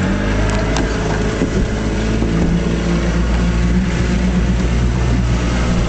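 1956 Johnson Javelin 30 HP outboard, a two-cylinder two-stroke, running steadily under way and pushing a small fiberglass runabout across a lake. The rush of wind and water is mixed in throughout.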